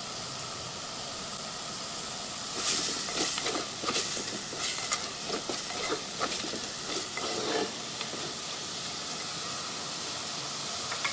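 Chopped stems and potato frying in oil and spice paste in a clay pot, a steady sizzle. From a couple of seconds in, a wooden spatula stirs and scrapes through them for about five seconds, then the sizzle goes on alone.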